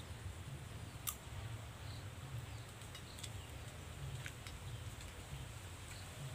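Spoon clicking and scraping against a plate while eating: faint, scattered clicks, the sharpest about a second in, over a low steady rumble.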